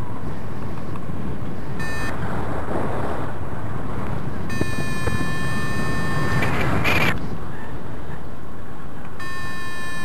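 Paragliding variometer sounding a steady electronic tone in stretches: a short one about two seconds in, a longer one from about the middle, and again near the end. Under it, wind rushes steadily over the microphone, with a louder gust about seven seconds in.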